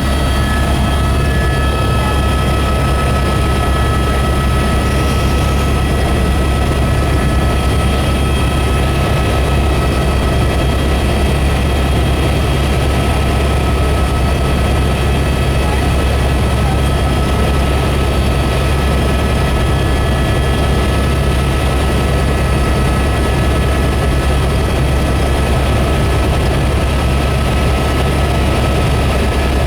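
Helicopter engine and rotor running in steady flight, heard from inside the cabin as a loud, even, low drone with steady high whining tones over it.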